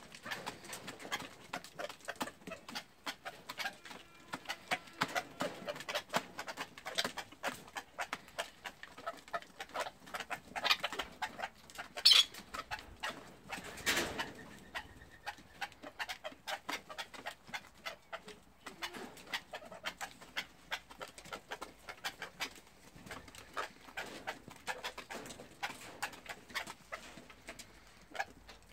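Grey partridges feeding at a plastic grain feeder and scratching through dry litter: a continuous patter of small pecking taps and clicks, with soft bird calls among them. There is a sharper, louder sound about twelve seconds in.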